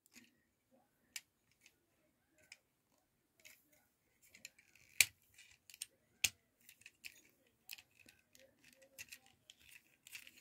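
Plastic parts of a Transformers Studio Series 86 Brawn figure clicking and tapping as they are handled and pressed together to seat their tabs, with two sharper clicks about five and six seconds in.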